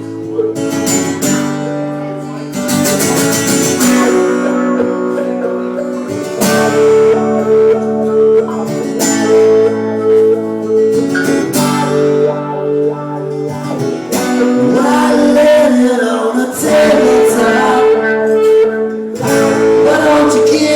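Live band music in an instrumental passage, led by strummed acoustic guitar chords.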